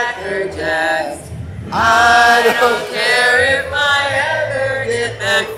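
Two people singing a song loudly together, in drawn-out held notes with short breaks between phrases.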